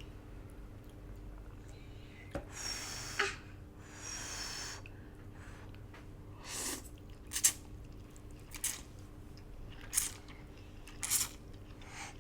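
Eating noodles from a bowl: two short slurps, then a handful of sharp separate clicks of utensils against the bowl.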